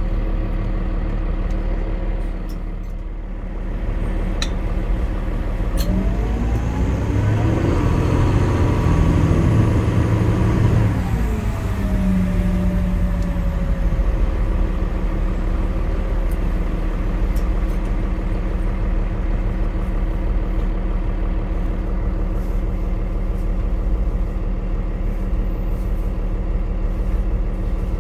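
Cabin sound of a 2008 NovaBus LFS city bus with a Cummins ISL diesel and ZF six-speed automatic: a steady low engine drone, then from about six seconds in a rising whine as the bus accelerates, which eases and falls away after about eleven seconds back to a steady cruising drone.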